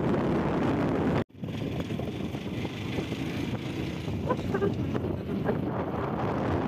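Wind buffeting the microphone over the hum of a motorbike riding along a road. The sound drops out completely for a moment about a second in, then carries on a little quieter.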